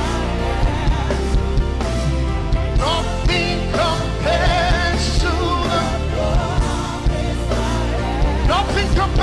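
Live gospel worship band playing: a steady beat over held bass notes, with a wavering, bending lead melody line on top.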